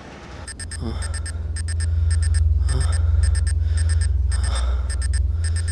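A deep, steady electronic drone starts about half a second in, with short runs of rapid high electronic beeps repeating over it, like a machine's tick-and-beep in a film's sound design.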